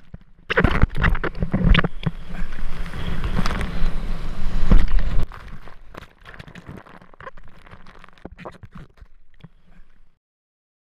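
Ocean whitewater rushing and spray splashing over a surfboard-mounted camera as the board rides a breaking wave. It is loudest for the first five seconds, then turns to quieter, choppy splashing, and cuts off suddenly near the end.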